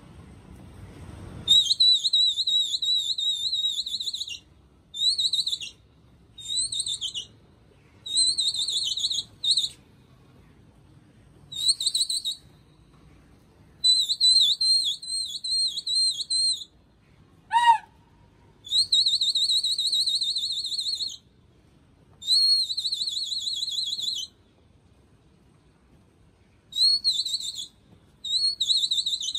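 Shrill warbling whistle blasts, one to three seconds each, repeated about a dozen times with short gaps. About two-thirds through comes one quick whistle gliding sharply upward. This is a pigeon flyer whistling to his flock while it is in the air.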